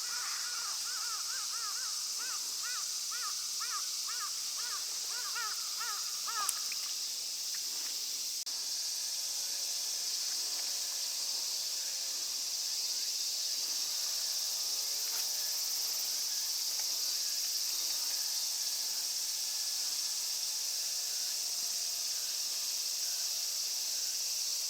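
Outdoor ambience of insects buzzing steadily at a high pitch. For the first six seconds or so a bird calls over it in quick repeated notes, and softer wavering calls follow later.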